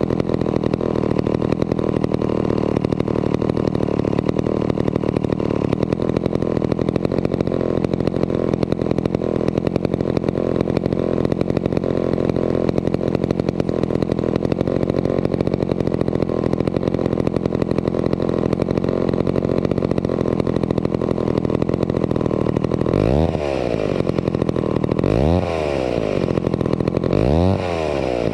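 Vintage McCulloch 250 two-stroke chainsaw running steadily at idle, then revved up and let back down three times near the end, about two seconds apart. The saw is running well after being brought back to operating condition.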